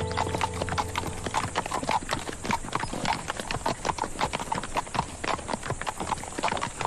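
Several horses walking, their hooves clip-clopping in a busy, uneven rhythm of overlapping steps.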